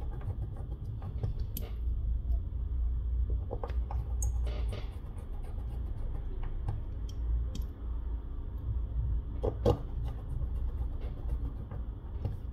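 Handling noise of fingertips pressing and smoothing a flex cable down inside an opened smartphone: scattered small clicks and taps over a low steady rumble, with a brief scrape about four and a half seconds in and one sharper click near the end.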